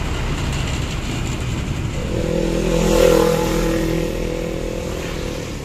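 Traffic passing close by: a truck goes past, then a small motorcycle's engine note rises and passes, loudest about three seconds in.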